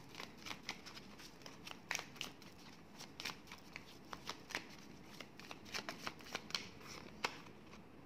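A deck of divination cards shuffled by hand: a faint, irregular run of soft card clicks and slaps, with one sharper snap about seven seconds in.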